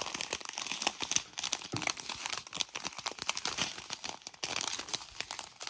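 Clear plastic packets of diamond painting drills crinkling and crackling as they are handled and shown one after another.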